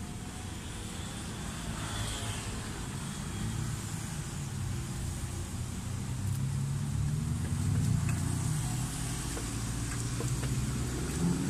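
Road traffic passing: vehicle engines making a steady low rumble that swells about seven seconds in, with a few faint clicks.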